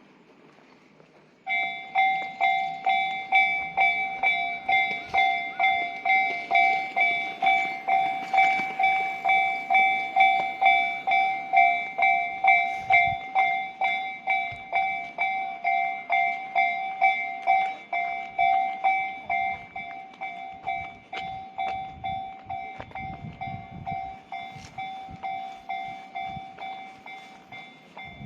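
Japanese railway level-crossing warning bell starting about a second and a half in and ringing at about two strikes a second, a little quieter in the second half: the crossing's alarm for an approaching train.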